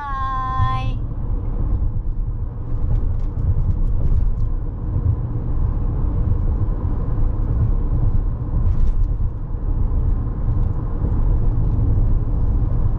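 Steady low rumble of a moving vehicle, with a faint steady hum above it.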